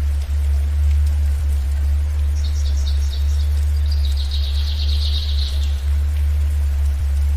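A steady low hum, the theta-wave tone of the mix, runs under a songbird: a quick series of high chirps, then a rapid high trill lasting about two seconds, over a faint hiss of rain.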